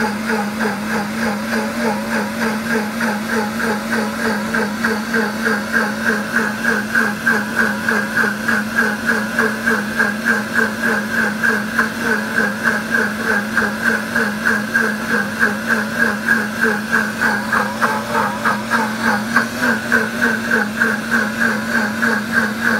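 Pampered Chef Deluxe blender running its wash cycle: the motor hums steadily while the liquid churns in the jar, with a quick, regular pulsing.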